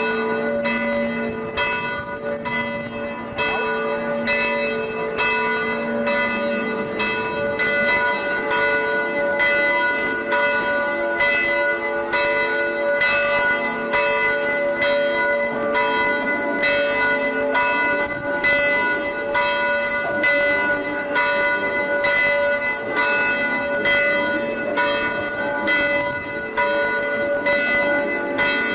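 Church bells ringing, a steady run of strikes with long-ringing tones; a lower bell's tone fades out about six seconds in.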